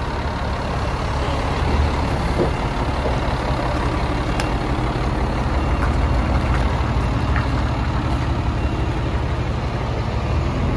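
The diesel engine of a parked FDNY pumper fire engine idling: a steady low rumble.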